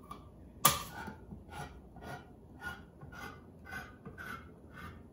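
Handheld crank can opener on a metal can: a sharp pop as the blade pierces the lid, then about eight short, evenly spaced grinding clicks, a little under two a second, as the key is turned and the blade cuts around the rim.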